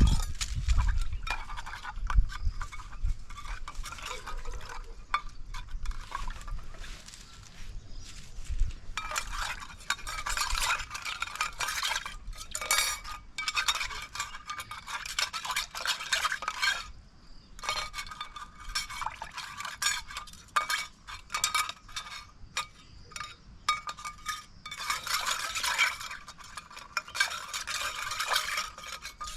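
Metal cookware being stirred and scraped, with quick irregular clinks and scrapes in stretches of several seconds.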